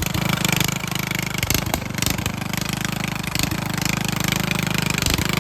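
Riding lawnmower's small engine running steadily with a fast, even pulse.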